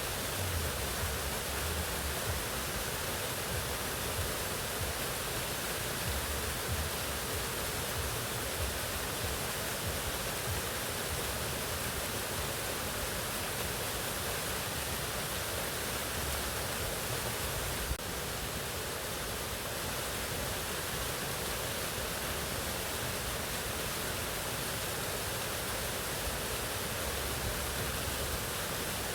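Mountain waterfall: a steady, even rush of falling water.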